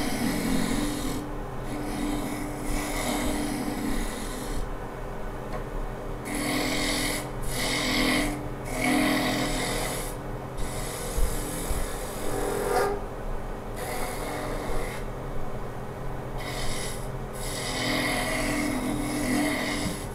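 Wood lathe spinning a wooden spindle blank while a turning tool cuts it, giving a rasping hiss of shavings peeling off over the lathe's steady hum. The cutting comes in passes that stop and start every few seconds.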